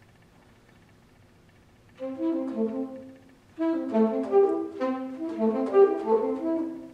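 Solo saxophone playing: about two seconds of quiet, then a short phrase of notes, a brief pause, and a longer run of quick notes that breaks off near the end.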